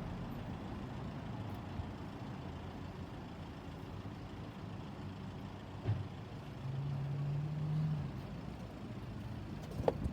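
Steady low rumble of a motor vehicle, with a soft thump about six seconds in, a low hum for about a second after it, and a sharp knock near the end.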